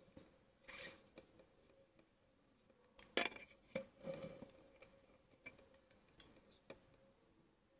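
Faint rustles and light taps of paper sheets and a textbook being shifted about on a tabletop, a few short handling sounds scattered through an otherwise quiet stretch, over a faint steady hum.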